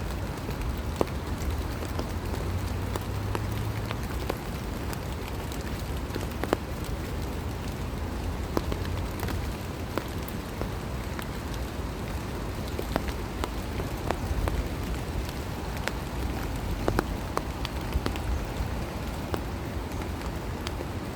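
Steady rain falling, an even hiss with scattered louder drops ticking close by, over a low rumble.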